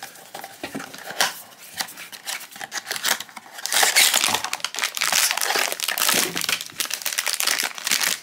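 A paperboard blind box being opened, with small clicks and scrapes at first. From about four seconds in, the foil inner bag crinkles loudly as it is pulled out of the box and handled.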